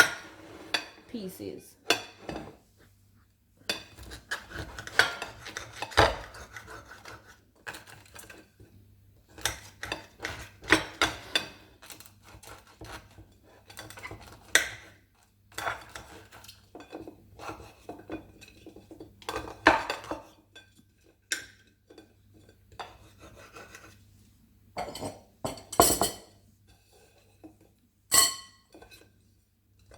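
A knife dicing seeded brown bread into small pieces: irregular knocks of the blade with rasping cutting strokes, broken by a few short pauses.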